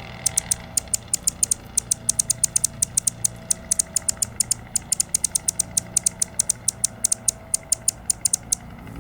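Hummingbird calling: a rapid run of short, high-pitched chips, about five a second, over a steady low hum, stopping shortly before the end.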